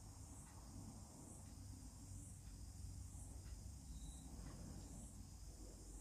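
Near silence: room tone with a low hum and a faint high chirp repeating about once a second.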